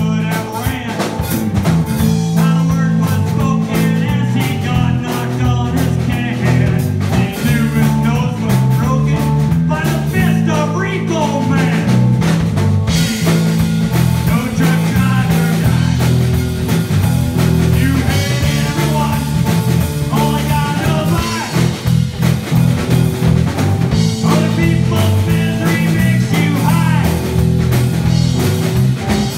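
Rock band playing: electric guitar over bass and drums, loud and continuous.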